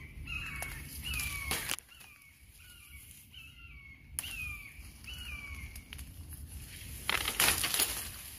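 A wild bird calling over and over, each call a short note falling in pitch, about one a second. There are two sharp clicks, about two seconds in and again about four seconds in. Near the end comes a loud rustle of leaves and stems being pushed through by hand.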